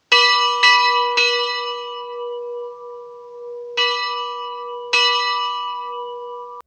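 Bell in a small wooden bell tower rung by hand: three strokes in quick succession, then two more a few seconds later, its tone ringing on between strikes with a steady low hum.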